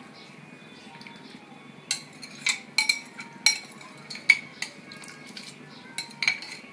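Metal spoon stirring rice in a stainless-steel pan of boiling water, over a steady low boiling sound. From about two seconds in, the spoon clinks sharply against the pan's sides several times.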